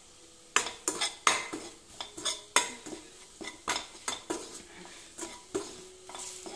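A steel ladle stirring and scraping fried onion and spice masala in a stainless steel kadai: irregular clanks and scrapes of metal on metal, starting about half a second in, some clanks ringing briefly.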